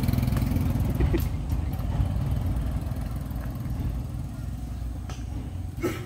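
Small step-through motorcycle engine running close by, then pulling away, its steady low rumble fading over several seconds.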